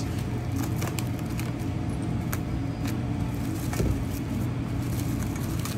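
Plastic cling film pulled from a dispenser box and stretched over a stainless steel bowl, giving scattered crinkles and crackles, over a steady low mechanical hum.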